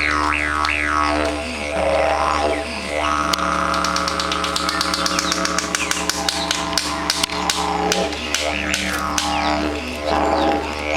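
Didgeridoo played live: a continuous low drone with overtones that sweep up and down as the player shapes the sound. From about three seconds in to about eight seconds in, the drone carries a run of fast, even rhythmic pulses.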